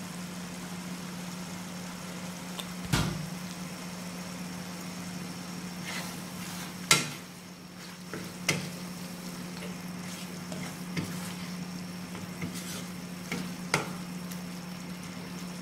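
Thick mushroom curry sizzling in a non-stick wok as a spatula stirs it, with the pepper powder just added, with about half a dozen sharp knocks and scrapes of the spatula against the pan, the loudest about seven seconds in. A steady low hum runs underneath.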